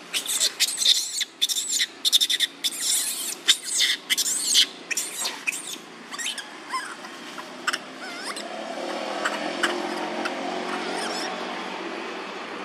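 Baby macaque crying in rapid high-pitched squeals and screeches, dense at first and thinning out after about six seconds: the distressed, angry cry of an infant fussing while trying to nurse. A steadier, lower background noise rises about eight seconds in.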